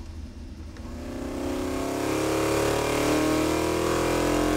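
Carbureted Chevrolet LS1 V8 running under load on an engine dynamometer, its pitch climbing steadily from about a second in and levelling off near the end: the first, easy dyno pull toward 4,000 rpm.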